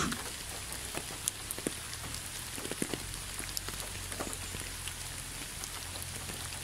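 Steady rain falling, with scattered individual drops ticking.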